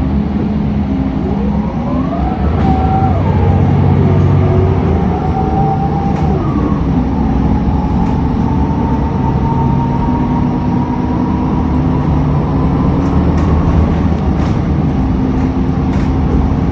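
City bus heard from inside while driving: a steady low engine and road rumble. Over it, a drivetrain whine rises and falls a couple of times as the bus picks up speed, then holds at a steady pitch while it cruises.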